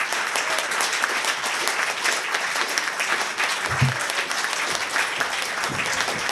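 Audience applauding: many hands clapping in a steady, dense patter, with a brief low thump a little under four seconds in.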